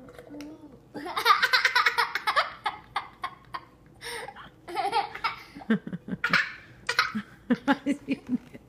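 A young child laughing hard in several fits: a long high-pitched burst about a second in, more bursts through the middle, and quick, lower, hitching laughs near the end.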